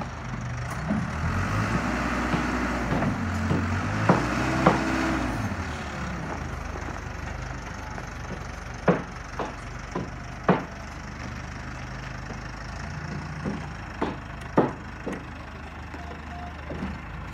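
A heavy engine runs and revs up and down for the first few seconds, then settles to a steady low hum. Over this come a dozen or so sharp knocks, several close together, like metal or wood being struck.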